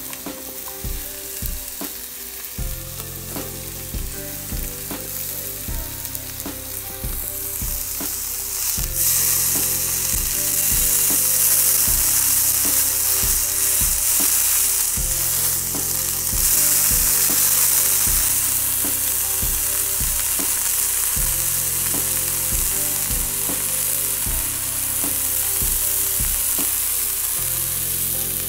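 Thick steak sizzling on a hot barbecue surface. The sizzle swells sharply about eight to nine seconds in and then keeps going strongly.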